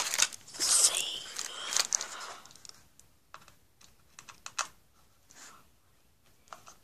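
Hands handling a cardboard box and small hard parts: a busy run of clicks, scrapes and rustles for the first two seconds or so, then scattered single clicks.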